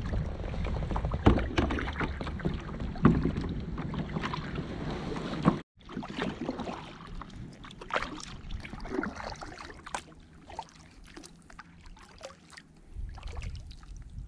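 Kayak paddling: a paddle dipping and splashing, with water dripping off the blades. For the first half, wind rumbles on the microphone. The sound cuts out for an instant about five and a half seconds in; after that the wind is mostly gone and only softer splashes and drips remain.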